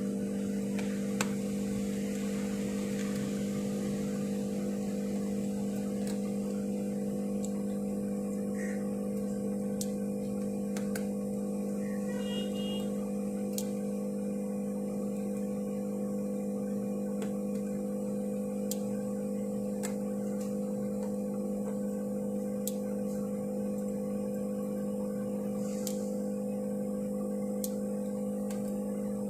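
A steady low hum of a few held tones, with about ten faint, sharp clicks scattered through it: a precision screwdriver and tweezers clicking on the screws and metal midframe of an opened smartphone as the screws are taken out.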